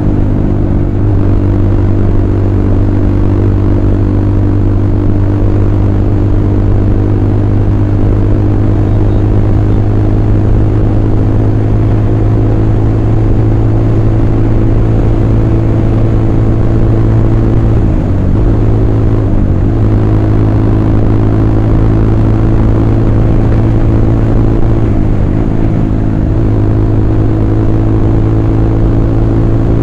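Royal Enfield Classic 350 single-cylinder motorcycle running steadily at highway cruising speed. The engine note dips briefly about two-thirds of the way through, and again a little later, as the throttle eases and picks back up.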